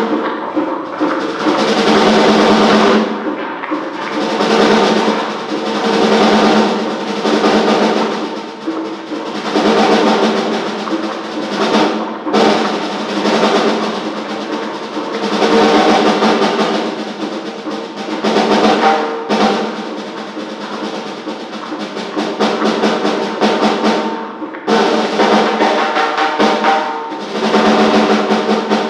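Experimental percussion music: rapid rolling, rattling percussion swells and fades in waves every couple of seconds over a sustained pitched drone.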